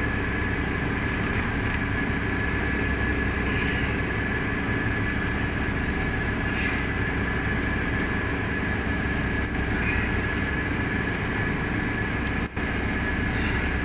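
Fishing boat's engine running steadily at idle: a continuous low drone with a thin steady whine over it, dropping out for an instant near the end.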